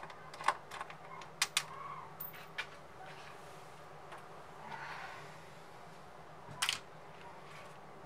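Light clicks and taps of a screwdriver and small parts on a PlayStation 5's plastic housing as it is taken apart. There are several in the first three seconds, a soft rustle about halfway, and a sharper double click near the end.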